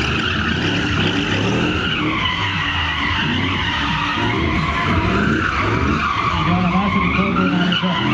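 Car drifting: the tyres screech in a wavering squeal while the engine revs rise and fall over and over as the throttle is worked.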